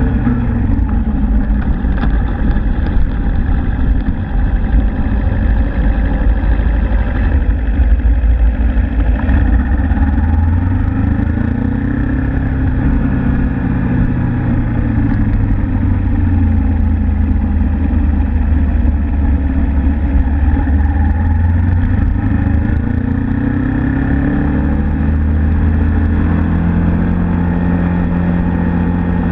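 Suzuki Inazuma GW250's 248 cc parallel-twin engine running under way. Its pitch drops in the first second, climbs and falls again around the middle, then climbs once more and holds near the end as the bike speeds up and slows in traffic.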